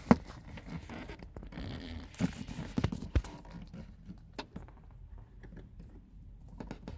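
Phone handling noise: irregular knocks, clicks and rubbing as the phone is gripped, moved about and set against a car dashboard. The loudest pair of knocks comes right at the start, and a cluster follows around two to three seconds in.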